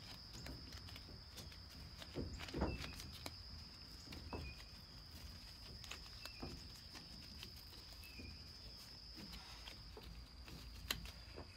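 Gloved hands handle and press a wet fiberglass pipe-repair wrap around a metal tube, making faint rustling with small clicks and a few light knocks, the loudest about two and a half seconds in. Under it runs a steady high insect drone that stops near the end.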